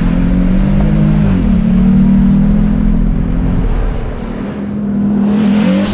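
A vehicle engine running hard with a steady pitch over a low rumble. The pitch dips briefly about a second and a half in and climbs near the end.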